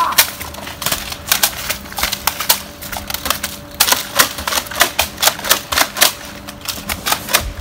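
Toy foam-dart blasters firing in a mock gunfight, a rapid, irregular run of sharp clicks and clacks.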